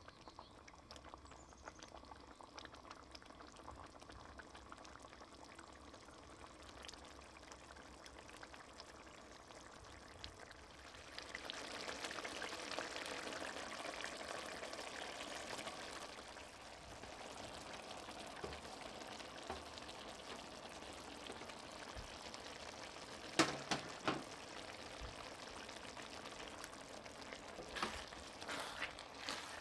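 Tomato sauce simmering faintly in a stainless steel wok. About a third of the way in, roasted eggplant cubes slide off a baking tray into the sauce for several seconds. This is followed by a few sharp knocks on the pan and, near the end, a spatula scraping and clicking against the wok as the eggplant is stirred in.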